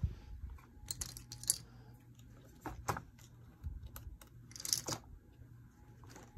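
Scattered light clicks and knocks of tools being handled on a workbench as a cordless impact driver and its bit are picked up and handled, with a short rattle near the end.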